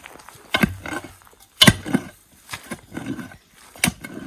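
A digging tool striking into clay soil about once a second, digging out a fence post hole, with a rough grunt-like sound after each stroke.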